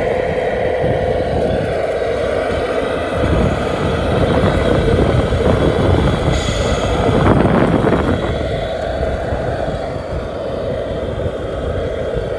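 Radio-controlled Tamiya Arocs 3348 6x4 dump truck driving on a test run: a steady hum from its drivetrain that grows louder for a few seconds in the middle, with a short rougher burst about seven seconds in, then settles back.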